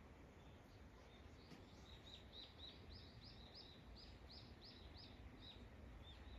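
A bird singing faintly in the trees: a quick run of short, repeated high notes, about three a second, that starts about a second and a half in and fades out near the end, over a low outdoor background hum.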